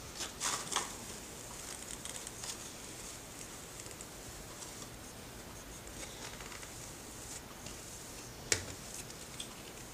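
Faint scraping of a metal drywall knife skimming setting-type joint compound on a ceiling to knock down the sponge texture, with a few short strokes in the first second and a sharp tap about eight and a half seconds in.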